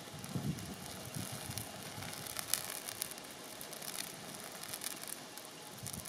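Wind rumbling on the microphone, with scattered sharp crackles from dry grass burning.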